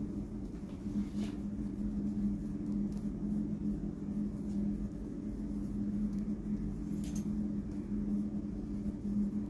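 A steady, low-pitched machine hum with a low rumble beneath it and a couple of faint clicks.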